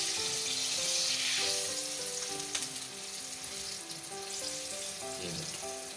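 Hot frying oil sizzling, strongest in the first second or so and then dying down. A background melody of single held notes plays underneath.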